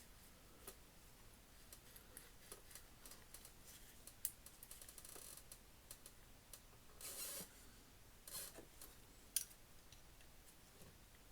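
Faint handling of a small metal ratchet mechanism: scattered light clicks with a couple of short scrapes past the middle and two sharper clicks.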